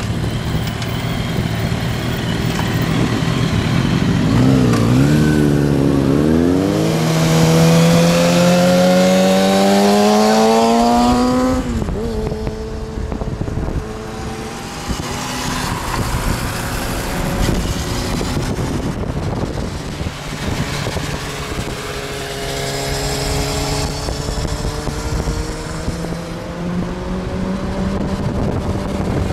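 Sport motorcycle engines revving in a few quick blips, then one accelerating hard, its pitch climbing steadily for about five seconds before dropping off suddenly. After that come steadier engine and road noise, with another slow rise in pitch near the end.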